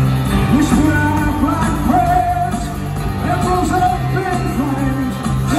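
Rock band playing live in a large arena, a man singing the lead melody over the full band.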